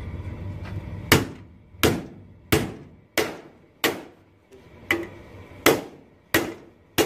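Hammer blows on sheet metal: about nine sharp strikes, evenly spaced roughly one every two-thirds of a second, each with a short metallic ring, starting about a second in. Before them a steady low hum.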